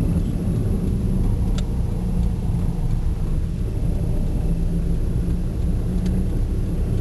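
Car engine running at a steady cruise with road noise, from a car being driven through city streets; a couple of faint clicks about a second and a half in and near the end.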